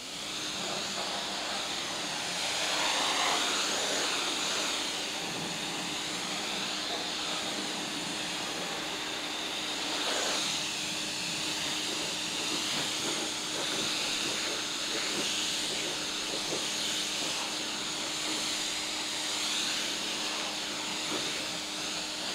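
Parkside PHDS 110 A1 Silent pressure washer running: a steady motor-pump hum under the hiss of its water jet spraying onto a car.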